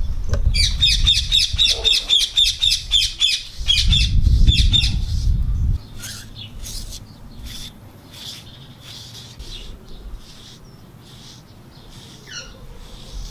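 A bird squawking in a rapid run of harsh, high calls, about five a second, for some four seconds, then a few fainter chirps. A low rumble sits under the first half and stops suddenly about six seconds in.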